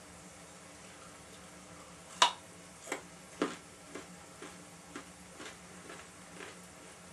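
A series of sharp clicks, about two a second, starting about two seconds in. The first is the loudest and the rest fade away.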